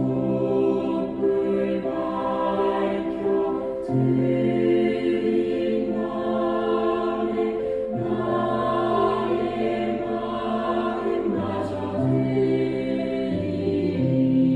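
Church youth choir singing a hymn in harmony, holding sustained chords that change every few seconds.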